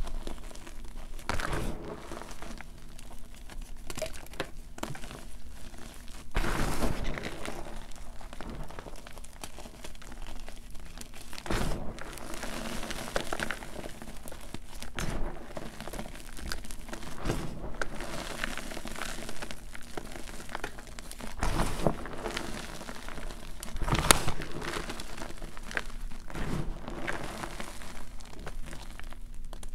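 Hands crushing and crumbling a bowl of broken-up gym chalk: a continuous soft crunching and crackling of compacted powder and chunks giving way between the fingers, with louder crunches now and then.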